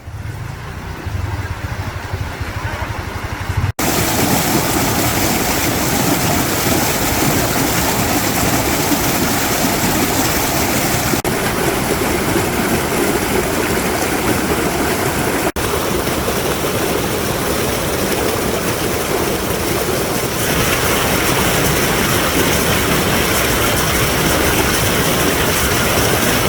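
Loud, steady rush of a mountain stream's water, close to the microphone, broken by a couple of abrupt edits.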